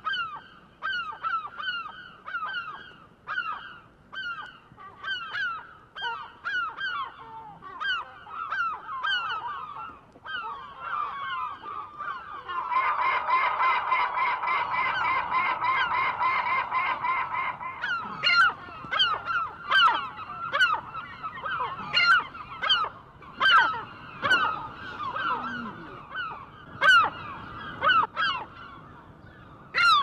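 A flock of gulls crying over and over with short, harsh, falling calls. About halfway through, the calling thickens for several seconds into a continuous din of many birds at once, then breaks up into separate loud cries again.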